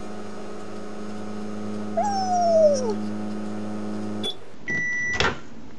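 A microwave oven running with a steady hum, cooking on its turntable. About halfway in a cat gives one falling meow. Near the end the oven stops with a click, gives a single short beep, and a clunk follows.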